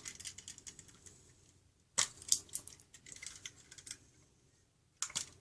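Tube of adhesive caulk being handled: a run of small clicks and plastic rattles in two clusters, one starting sharply about two seconds in and another near the end.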